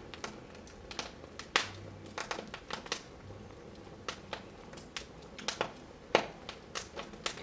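Wood fire crackling: irregular sharp pops and snaps, the loudest about a second and a half in and again about six seconds in.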